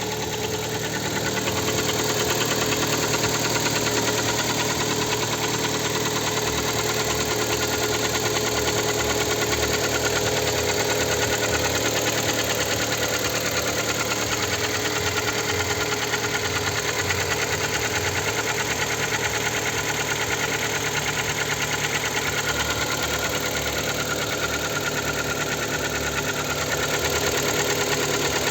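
Kia Sportage 3's G4KD 2.0-litre four-cylinder petrol engine idling steadily with a fast, even knocking running through it.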